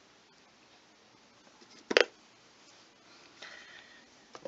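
Dead air on a weather radio broadcast: faint hiss with a single sharp click about two seconds in, and a faint brief tone near the end.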